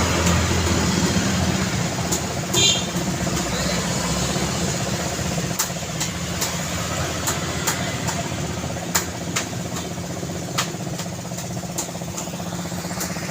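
Street traffic: a vehicle engine running close by, its hum easing off after the first couple of seconds. A brief high chirp comes about two and a half seconds in, and sharp clicks are scattered throughout.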